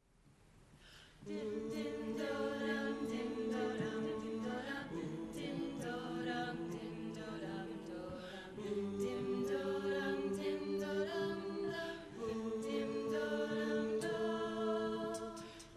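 An a cappella vocal group singing wordless, sustained chords in harmony, fading in over the first second and moving to a new chord every few seconds. Sharp clicks keep an even beat over the chords.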